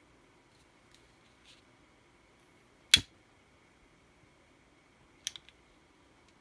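A lighter being struck: one loud, sharp click about three seconds in, then a quicker, softer double click a couple of seconds later.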